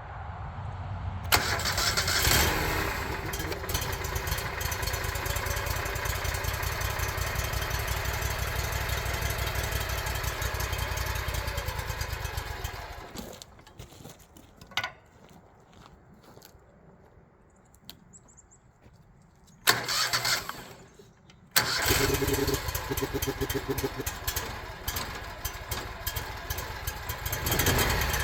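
The sawmill's engine, cold after sitting a few days in below-freezing weather, starts about a second in and runs for roughly ten seconds, then dies away. After a short loud burst near twenty seconds it catches again and keeps running.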